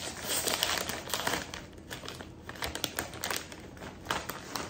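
Plastic chip bag crinkling as it is pulled open and handled: a dense run of crackles over the first second and a half, then sparser crinkles as a hand goes into the bag.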